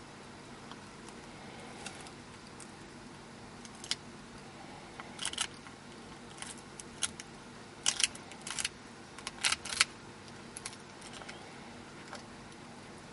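Quail eggshells cracking and crunching in the jaws of a Mexican beaded lizard: scattered sharp cracks and clicks in small clusters, loudest about eight to ten seconds in.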